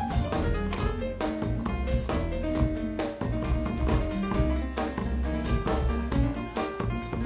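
Live jazz band playing an instrumental passage: electric keyboard over a drum kit keeping a steady beat, with upright bass underneath.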